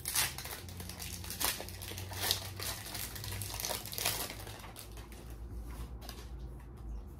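Foil booster-pack wrapper crinkling as it is handled and the cards are pulled out of it, with sharper crackles now and then; it quiets down after about four seconds.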